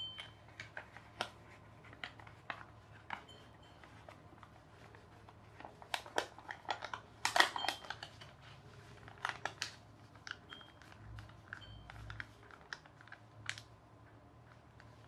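A sheet of printed paper being folded and creased by hand into an origami paper boat: scattered small crackles and rustles, busiest around the middle.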